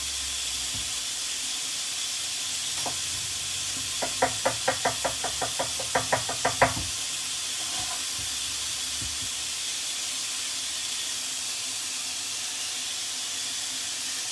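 A quick run of about a dozen sharp knocks with a slight ring, about five a second, over the steady hiss of chicken frying in hot oil.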